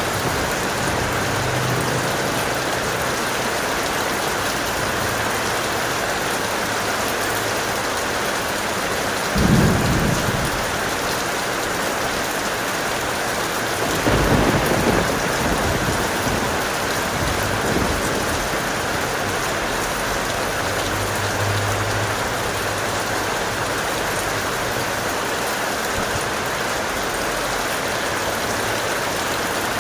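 Strong, steady rain with thunder rumbling low twice: a short roll about a third of the way in and a longer one around the middle.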